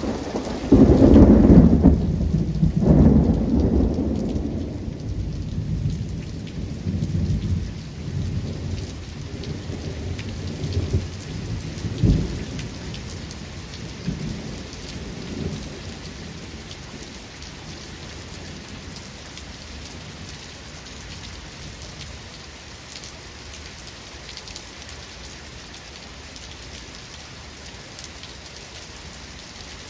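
A thunderclap about a second in, rolling on as a long, deep rumble with several smaller surges that dies away after about fifteen seconds, over steady rain hiss that carries on alone to the end.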